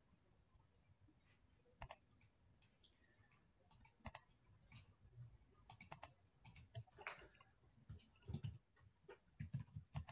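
Near silence with faint, irregular clicks of a computer keyboard and mouse. The clicks come sparsely at first and more often from about halfway through.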